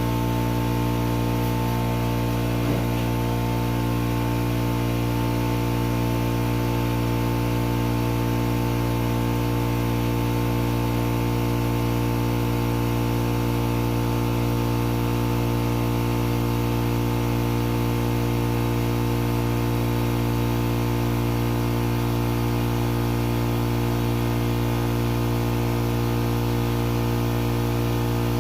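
Air compressor running with a steady, unchanging hum.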